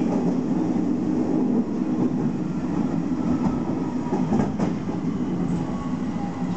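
Running noise of a Nishitetsu electric commuter train heard from inside the car at speed: a steady rumble of wheels on rails. Faint steady high tones join it in the second half.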